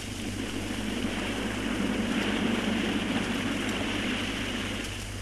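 Steady rumbling noise over a constant low hum, swelling slightly about two seconds in.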